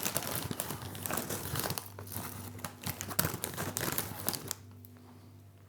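Plastic crisp bag crinkling and rustling as a hand rummages inside it, stopping about four and a half seconds in; a low steady hum is left underneath.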